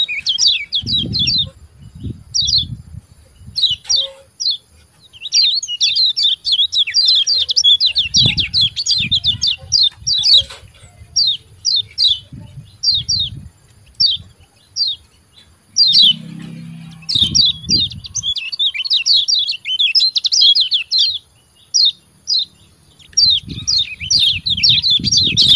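Kecial kuning (a white-eye) calling in quick runs of sharp, high 'ciak ciak' chirps. The runs come in bursts with short pauses between them, and low dull bumps sound under some of them.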